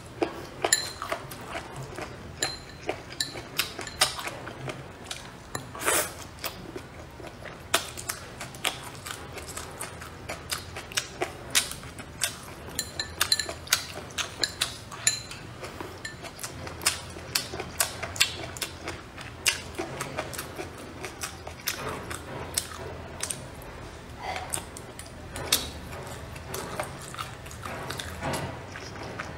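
Close-up eating sounds: crisp, crunchy chewing of cold-dressed tilapia fish skin, with many irregular sharp clicks of chopsticks and teeth against the bowl and food.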